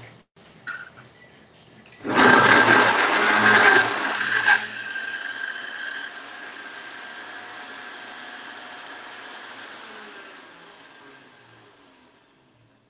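Countertop blender grinding raw pork into a paste. About two seconds in it runs loudly at full speed for a couple of seconds, then drops back, and its motor winds down slowly over several seconds with its pitch falling.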